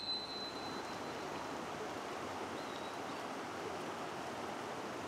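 Shallow, clear mountain river running over rocks: a steady rush of flowing water.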